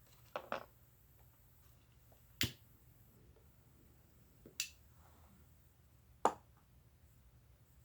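A handful of sharp, isolated clicks and taps of small objects being handled on a table: a quick pair near the start, then single clicks a couple of seconds apart, the loudest near the end.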